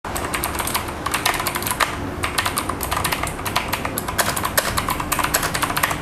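Fast typing on a mechanical keyboard with clicky blue switches: a dense, irregular run of sharp key clicks.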